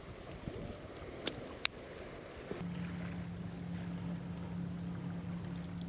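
Two sharp clicks as a GoPro camera and its battery pack are handled. Then a steady low hum sets in abruptly about halfway through, with wind and water noise.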